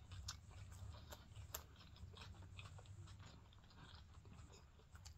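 Faint mouth sounds of a man chewing a bite of burger: soft wet smacks and clicks, several a second, strongest in the first second and a half.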